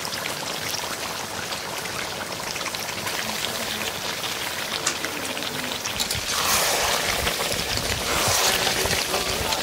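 Mutton curry cooking in a pot, with a steady sizzle and pour-like hiss that grows louder and fuller about six seconds in.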